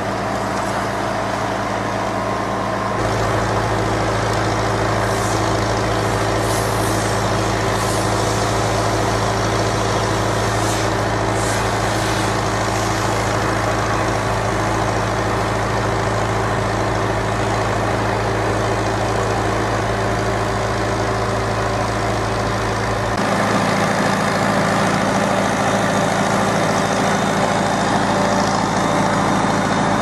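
A heavy engine running steadily. Its hum steps up abruptly about three seconds in and shifts again about seven seconds before the end, with a few brief high hisses in between.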